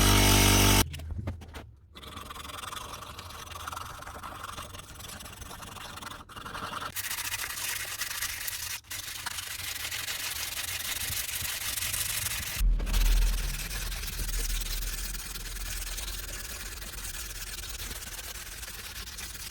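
Abrasive hand rubbing or sanding of tool parts: a steady scratchy rasp that goes on in several cut-together stretches. In the first second a power tool's motor runs and then cuts off suddenly.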